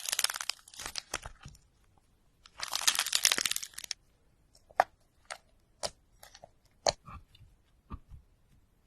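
Clay cracking and crunching as it is broken: two dense bursts of crackling, then a handful of separate sharp cracks about a second apart.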